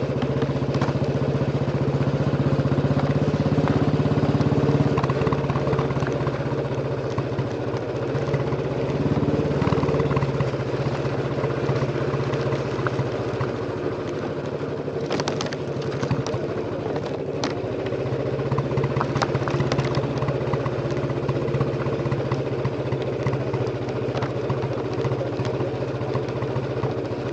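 Royal Enfield Bullet 350's single-cylinder engine thumping steadily through its exhaust on the move, running a little harder for the first ten seconds or so and then settling. A few sharp clicks or rattles come about halfway through.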